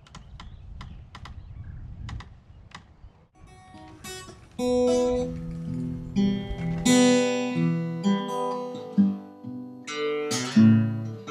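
Acoustic guitar music, plucked and strummed, coming in about three seconds in. A few faint clicks over a low rumble come before it.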